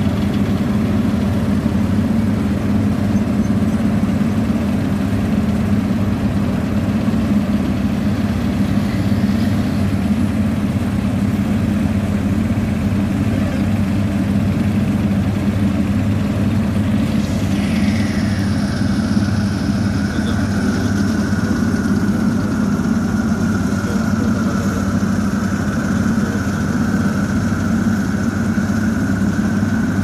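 Vögele asphalt paver's diesel engine running steadily at close range while it lays the bitumen course, with the tipper truck feeding it. About two-thirds of the way through, a high whine slides down in pitch and then holds steady.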